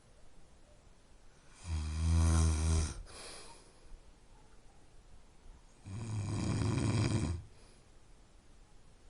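Snoring: two long, low, buzzy snores about four seconds apart, each lasting around a second, with quiet pauses between them. A short breathy hiss follows the first snore.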